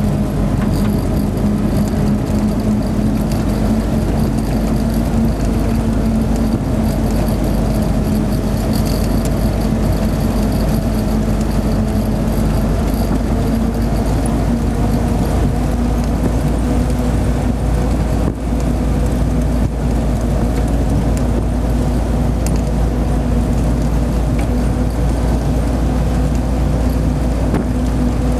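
Hotchkiss M201 jeep's four-cylinder side-valve engine running steadily on the move, heard from the driver's seat over a constant low road and wind rumble. The engine note climbs slightly near the end.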